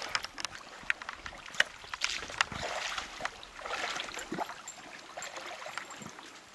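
Shallow river water splashing and sloshing around a wading angler's boots as a hooked fish is drawn in and thrashes at his feet, with many sharp splashes and clicks, busiest about two to four seconds in.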